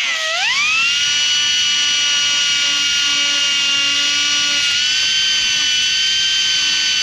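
Grinder whining as it cuts the head off a seized, rusted body bolt. The pitch dips sharply as the disc bites just after the start, then recovers and holds a steady high whine.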